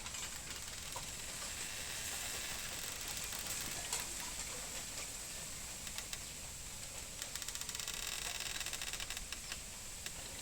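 Bamboo stalks rubbing against each other, giving scattered knocks and clicks and, from about seven seconds in, a couple of seconds of fast creaking. A steady high-pitched hiss runs underneath.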